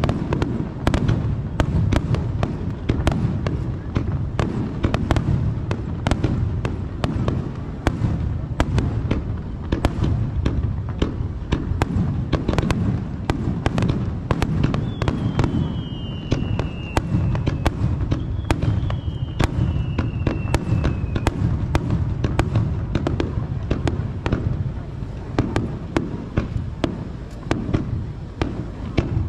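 Aerial fireworks display: a rapid, continuous barrage of sharp cracks and bangs over a steady low rumble, with two falling whistles about halfway through.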